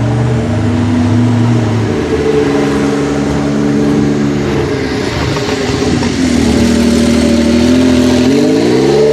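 The Prato Orage's 8.1-litre naturally aspirated Chevrolet V8 running loud and revving, its pitch shifting up and down. It holds a low note for a couple of seconds, then the revs climb quickly near the end and the sound cuts off suddenly.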